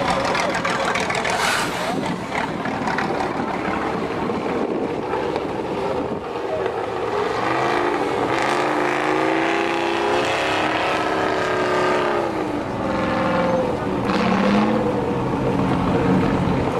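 Tatra 805 trial truck's engine working hard as the truck climbs a steep dirt slope, its revs rising and falling through the middle of the climb.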